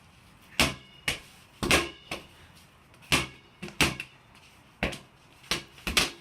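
A ball bouncing hard off a wall and floor in a game of wall ball: about ten sharp, irregularly spaced smacks, some in quick pairs.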